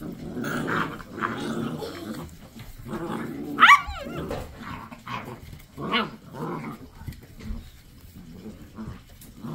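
A litter of Basset Hound puppies growling and yipping as they play-fight and tug on rope toys, with one loud, high yelp that rises and falls a little under four seconds in.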